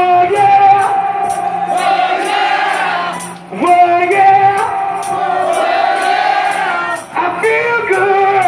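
Live rock band music. The lead holds long notes over the band in three phrases, each starting with an upward slide.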